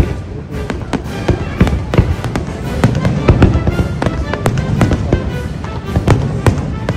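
Fireworks going off in quick succession, sharp bangs a few times a second with crackling in between, with music playing along.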